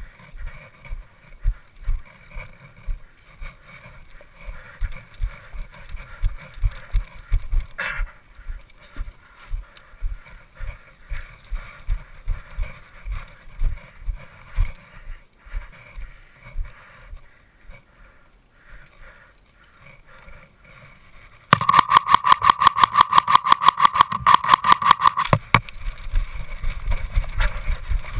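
Regular low thuds of footsteps, about two a second. About 21 seconds in, an airsoft electric gun fires a rapid full-auto string lasting about four seconds, with a steady gearbox whine under the shots. Then the footsteps resume.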